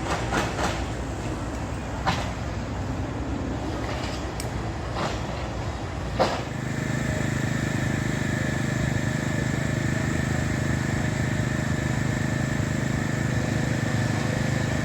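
A few sharp knocks over a rumbling background, then from about six seconds in a motor vehicle's engine running steadily at an unchanging pitch.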